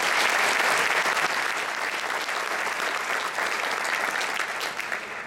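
Audience applauding in an auditorium after a speaker's thanks: dense clapping that tapers off near the end.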